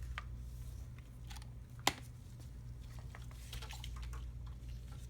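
Scattered light clicks and taps of small objects being handled, with one sharper click about two seconds in, over a low steady hum.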